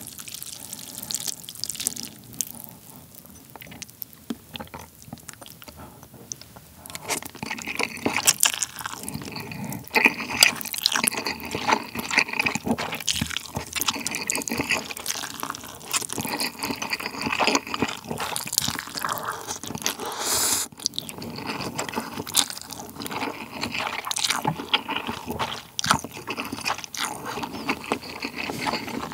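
Close-miked eating sounds: a person slurping and chewing instant ramen noodles in spicy broth, with many wet mouth clicks and smacks. It is quieter for the first several seconds, then the slurping and chewing grow busy. Near the end comes a sip of broth from a small bowl.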